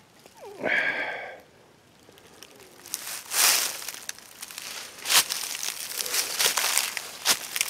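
Dry leaf litter crunching and twigs and brush crackling and snapping as a person pushes on foot through a dense thicket, in irregular bursts with sharp clicks. About a second in there is a short vocal sound from the person.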